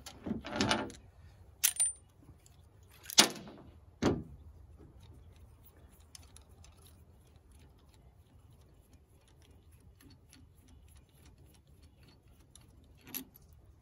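Small metal clicks and clinks as a Holley four-barrel carburetor is handled and taken apart on a steel tailgate. There are two louder knocks about three and four seconds in, then faint scattered ticking.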